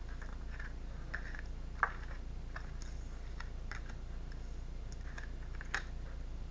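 A deck of tarot cards being shuffled by hand: soft, irregular flicks and clicks of card against card, spaced out over a steady low hum.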